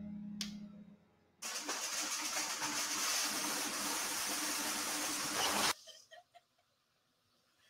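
Film soundtrack: a held keyboard note fades out, then an even rushing noise runs for about four seconds and cuts off suddenly, leaving near silence.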